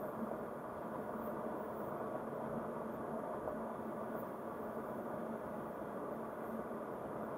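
Steady tyre and road noise of a car driving on a concrete road, heard from inside the cabin, with a faint low hum underneath.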